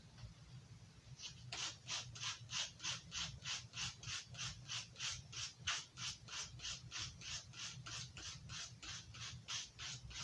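A steel knife blade being drawn quickly along a fine-grit sharpener, giving a rapid, even run of short scraping strokes, about three a second, starting about a second in.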